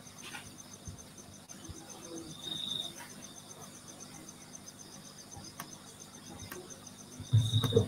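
Faint insect chirping: a fast, even pulsing with a thin high whine that swells briefly a couple of times. A few short low knocks come near the end.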